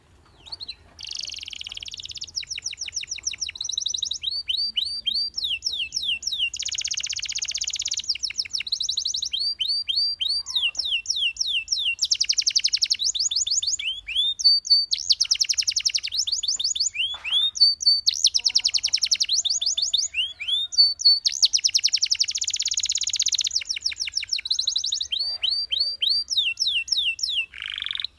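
Domestic canary singing a long, unbroken song of high-pitched rapid trills and rolls, switching to a new repeated phrase every second or two.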